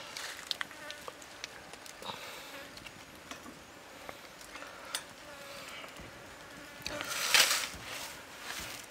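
A whole fish being laid and shifted on a wire grill by hand: light clicks, then a loud rustling scrape about seven seconds in. A faint insect buzz runs underneath.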